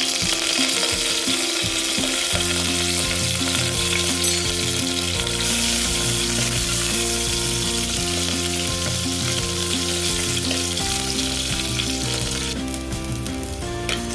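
Shallots and dried red chillies sizzling and being stirred in hot oil with mustard seeds in a clay pot, as a tempering; the sizzle thins near the end. Steady low held tones, changing pitch every few seconds, sound underneath.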